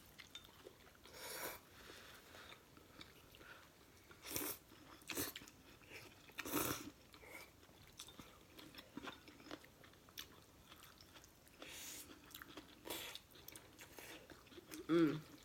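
Close-miked eating: chewing and biting of a noodle meal, heard as scattered short bursts of mouth noise. A brief voiced sound comes near the end.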